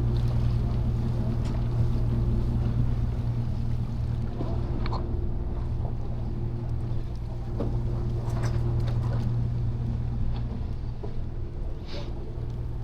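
A charter fishing boat's engine running with a steady low hum, with a few faint short knocks over it.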